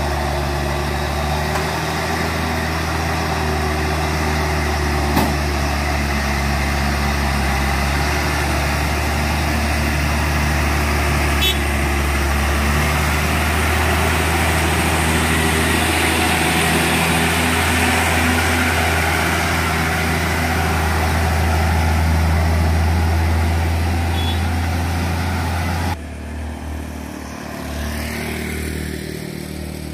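Hino 500 FM 260 JD truck's diesel engine running steadily under load as the truck climbs a steep hairpin bend. Near the end the sound drops suddenly to a quieter engine sound.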